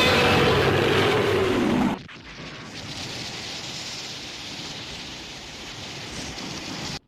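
A loud monster roar for Godzilla, falling in pitch, cuts off about two seconds in. A quieter, steady rain-like hiss of film ambience follows, with a brief drop to silence near the end.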